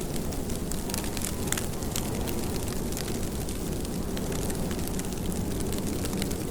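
Steady rain: a dense hiss with a low rumble underneath and scattered sharp ticks of drops hitting a surface.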